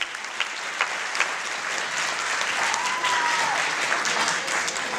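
Audience applauding, a dense patter of hand claps that swells a little in the second half.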